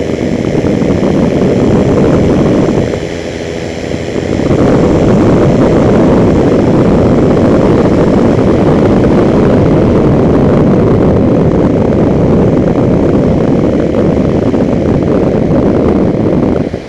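Flylight single-seat flexwing microlight trike in flight: a loud, steady wind rush over the microphone mixed with the engine and propeller. About three seconds in the rush dips for a second or so and the engine's steady note comes through, then the full rush returns.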